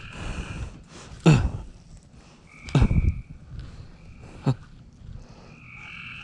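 Frogs calling in drawn-out, even-pitched calls of about half a second to a second, several times. Three sharp, short bursts close to the microphone cut in, the loudest about a second in, the others near the middle.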